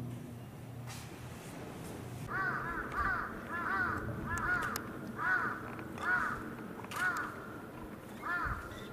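A crow cawing repeatedly: about eight short caws, each rising and falling in pitch, starting about two seconds in.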